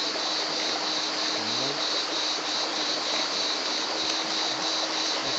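Steady chorus of insects, a continuous high buzzing band, over an even rush of running creek water.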